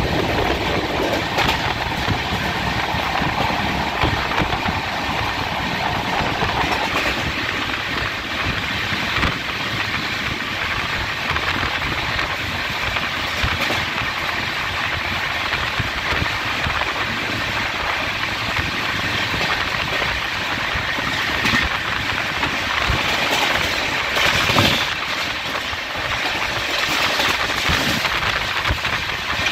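A train running along the track, heard from aboard: a steady rumble and hiss of wheels on rail with scattered clicks from the rail joints, and one louder knock a little before the end.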